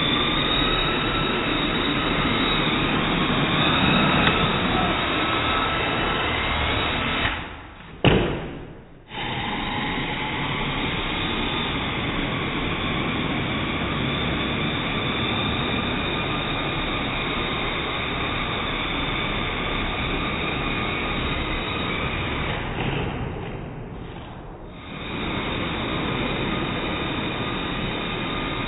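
Parrot AR.Drone quadcopter's rotors running with a steady, loud buzzing whine. The sound drops away briefly twice, with a sharp knock about eight seconds in.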